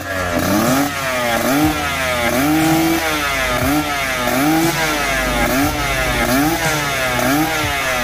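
Suzuki RG two-stroke single-cylinder motorcycle engine revved in quick repeated throttle blips through an expansion-chamber exhaust, about two revs a second, with one held a little longer about three seconds in.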